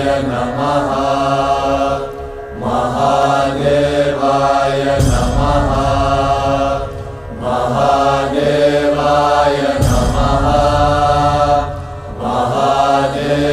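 Devotional mantra chanting sung over music with a low steady drone, in long repeated phrases with a short break about every five seconds.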